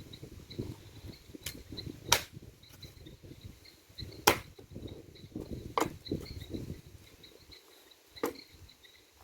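Insects chirping in a steady repeated pattern, with about five sharp cracks or knocks scattered through, the loudest about two seconds in and just after four seconds, over an uneven low rumbling noise.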